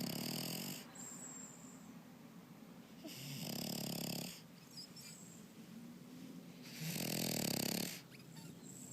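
French bulldog snoring in its sleep: a loud snore about every three and a half seconds, three in all, with fainter breathing between.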